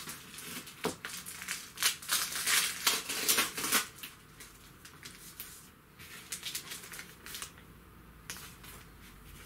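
Paper and cardboard rustling and scraping as packaging and sheets are handled, loudest for a couple of seconds near the start, then softer, scattered rustles.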